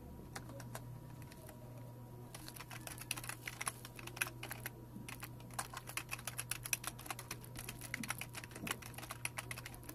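Typing on a computer keyboard: quick, irregular key clicks, a few at first, then a steady run of typing from about two seconds in until near the end, over a steady low hum.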